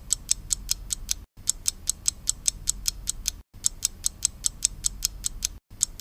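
Rapid, even mechanical ticking, about five ticks a second, broken by brief silent gaps about every two seconds.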